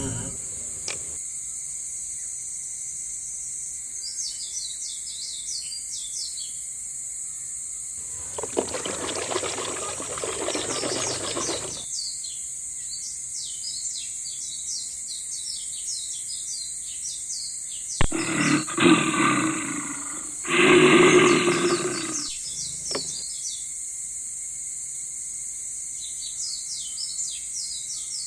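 Outdoor nature sound effects: birds chirping over a steady high hiss. About eight seconds in there is a rushing noise lasting about four seconds, and near two-thirds of the way through an animal gives a roar-like call in two parts.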